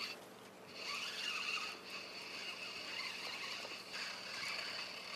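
Spinning reel being cranked, a steady high whirring whine that breaks off briefly near the start, as a hooked mackerel is reeled in.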